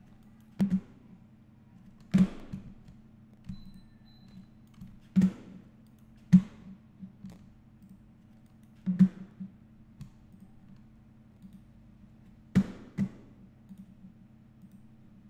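Sharp clicks of a computer mouse and keyboard, one every second or few at irregular intervals, some in quick pairs, over a steady low hum.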